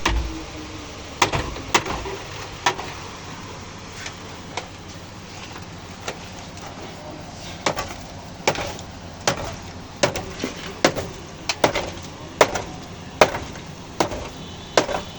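Hammer blows on the sheet-metal body panels of a Suzuki Cultus during dent repair: single sharp strikes with a short ring, a few at first, then coming faster, about one or two a second, through the second half.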